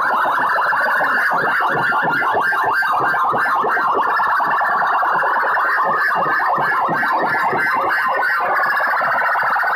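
Banks of horn loudspeakers stacked on a sound-system truck blaring at very high volume: a harsh, distorted sound pulsing rapidly, several beats a second, with little deep bass.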